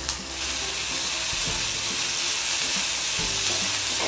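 Chopped onion frying in hot oil in an aluminium kadhai while being stirred with a slotted spatula: a steady sizzling hiss that swells a moment in and then holds even.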